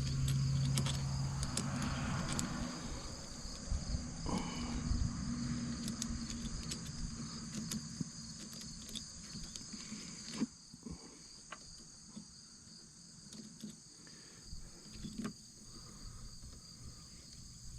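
Crickets chirring steadily, with scattered light clicks and knocks as the aluminium phone-mount clamp and its bolt are handled on the roll bar, one sharper knock about ten seconds in.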